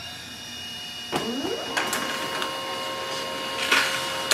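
Pantum P2502W laser printer printing a page. About a second in its motor starts up with a rising whine, then it runs with a steady whine, broken by several clicks, the loudest near the end.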